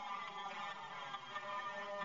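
Instrumental passage of a song's backing track: a dense, continuous mix of many held tones with no voice, heard through a playback device's speaker.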